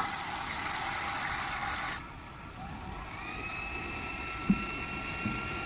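Smart toilet warm-air dryer starting: a click, a couple of seconds of hiss, then the fan motor spinning up with a rising whine that settles into a steady whine.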